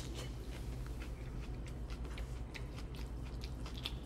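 A person chewing a mouthful of a Chipotle burrito bowl close to the microphone: a run of irregular, crisp little crunches and smacks, over a steady low hum.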